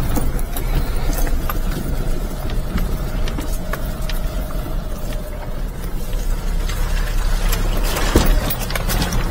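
Daihatsu Atrai kei van's 660cc turbocharged three-cylinder engine running at low speed on a rough dirt trail, heard from inside the cab. Frequent rattles and knocks come from the van over the uneven ground.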